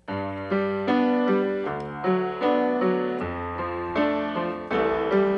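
Background music: a piano or keyboard intro playing a chord progression over a bass line.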